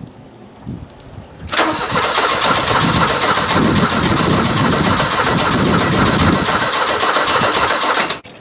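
Porsche engine being cranked by its starter for about six and a half seconds without catching, then cut off suddenly: a no-start despite a new battery. It begins about a second and a half in.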